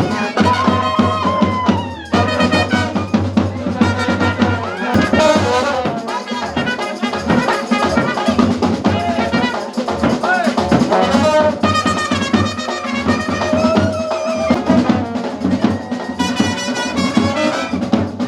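Brass-band music: a loud trumpet-like melody over drums.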